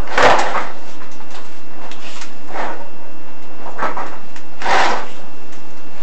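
Inspection camera head scraping and rubbing against the inside of a furnace flue as it is lowered, in a few short rasps, the loudest just after the start and about five seconds in.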